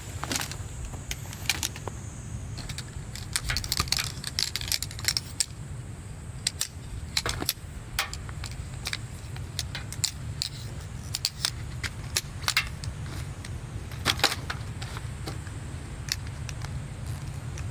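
Irregular light clicks and clinks, like small hard or metal items knocking together as they are handled, over a steady low rumble.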